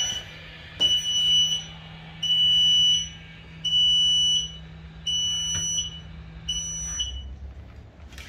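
E-stopp electronic parking brake releasing the rear brakes: its actuator motor hums steadily for about seven seconds while a high beep sounds every second and a half or so, five times, then both stop together.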